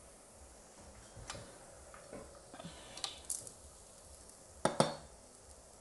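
A few light clicks and clinks of kitchenware over a faint steady background, the loudest a quick double knock just before five seconds in.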